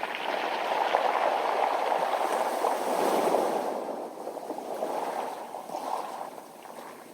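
Sea wave washing up a beach of smooth round pebbles: the rush of water swells at the start, stays loud for a few seconds, then draws back and fades near the end.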